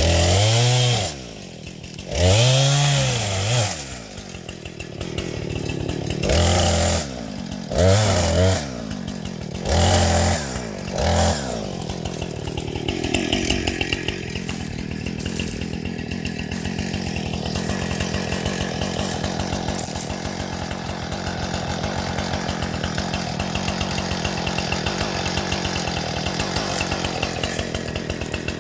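An engine revving up and dropping back in about six short bursts over the first twelve seconds, then running steadily at a lower speed.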